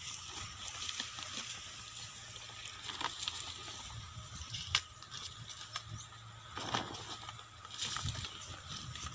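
Rustling of a woven plastic sack and corn leaves as someone moves and handles things among the corn plants, with a few sharp clicks.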